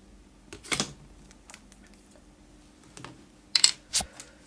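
Light plastic clicks and taps as plastic toy arrows and a toy bow are handled and set down on a tabletop: one tap under a second in, then three quick ones near the end.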